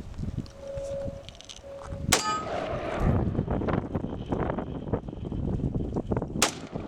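A rifle shot about two seconds in, with a steel target plate clanging and ringing after the hit, then another sharp shot near the end. Wind rumbles on the microphone throughout.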